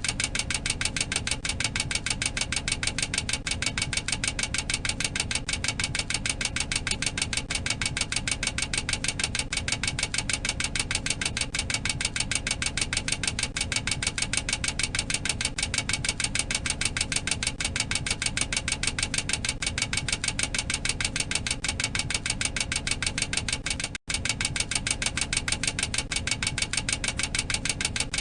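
Boeing 737-800 cockpit overspeed warning clacker: a fast, steady mechanical clacking that signals the aircraft has exceeded its maximum operating speed. The clacking breaks off for an instant once, near the end.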